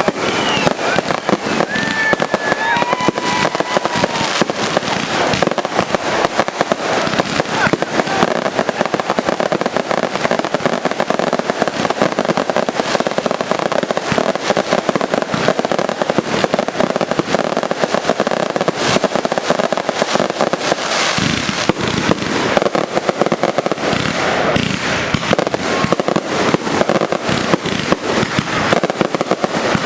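Fireworks going off in a dense, unbroken barrage of rapid bangs and crackles.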